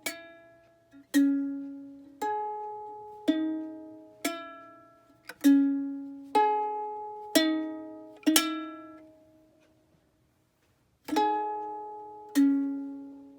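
Ukulele strummed one chord at a time, about once a second, each chord ringing out and fading. A pause of about two seconds comes past the middle, and two last chords follow near the end.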